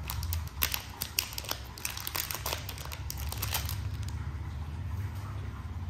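White packing wrap crinkling and crackling as a metal watch case is unwrapped from it, in a quick run of sharp crackles that stops about three and a half seconds in. A steady low hum lies underneath.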